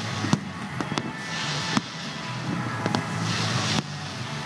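Firework display: a string of sharp bangs and cracks at uneven intervals, with hissing from launching fireworks that swells between bangs. Music plays underneath.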